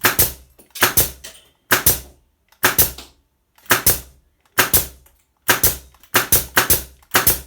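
Pneumatic nail gun firing shot after shot, about one sharp crack a second with some in quick pairs, as it drives nails until the magazine runs empty.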